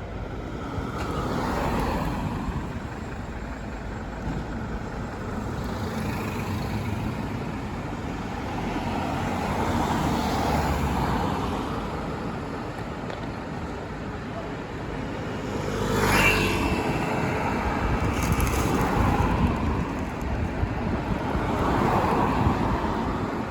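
Road traffic: vehicles passing one after another, each swelling and fading. About 16 seconds in, one passes loudest with a brief high steady tone.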